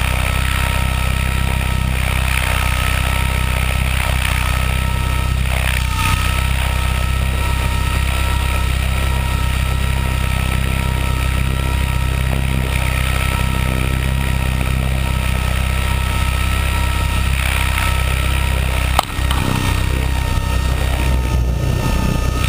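Small RC helicopter carrying the camera, heard from on board: steady rotor and motor noise with a heavy low rumble and a steady whine. The sound dips sharply for a moment about nineteen seconds in, then runs on a little rougher as the helicopter comes down low over the pad.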